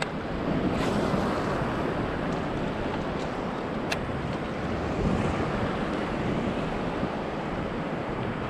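Surf washing steadily, with wind rumbling on the microphone. A single sharp click comes about four seconds in.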